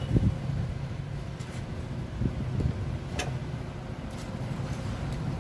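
Steady low background rumble, with a few faint clicks and soft mouth sounds as boiled breadnut (kamansi) seeds are chewed and peeled by hand; the sharpest click comes about three seconds in.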